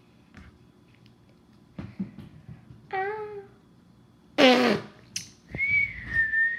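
A child blowing a loud raspberry, a fart-like buzzing mouth noise dropping in pitch, about four and a half seconds in, after a shorter high-pitched vocal squeak. Near the end comes a high, wavering squeal.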